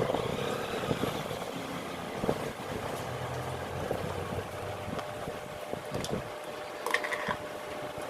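Yamaha R15's single-cylinder four-stroke engine idling, with scattered clicks and ticks over it and a short higher-pitched sound about seven seconds in.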